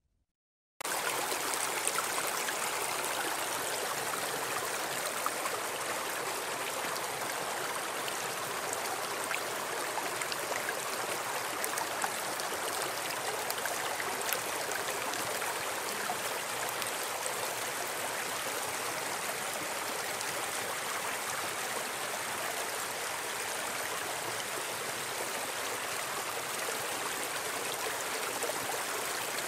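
Shallow stream running over rocks, a steady rush of water that cuts in abruptly just under a second in.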